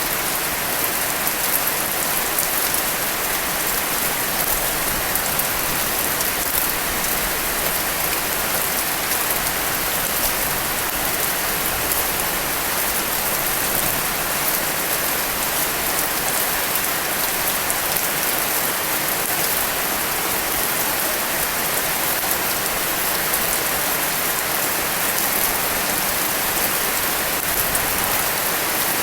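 Steady rain falling, an even hiss of drops spattering on surfaces.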